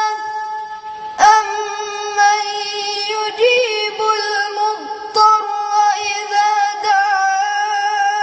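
A boy's voice chanting Quran recitation in melodic tajweed style, holding long notes on one pitch with slight wavering, with short breaks about a second in, about five seconds in and again near seven seconds.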